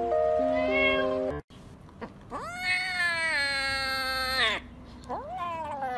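Background music with steady held notes for about the first second and a half. Then a kitten meows: one long meow of about two seconds that rises, holds and falls, and near the end a shorter rising meow.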